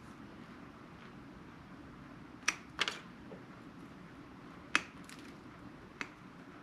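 A handful of sharp, short snips, one of them doubled, from a cutting tool working through the outer jackets of small multi-conductor cables.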